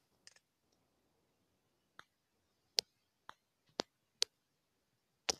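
Near silence broken by about seven short, sharp clicks at uneven gaps of half a second to a second, the loudest about three seconds in, about four seconds in, and a quick pair near the end.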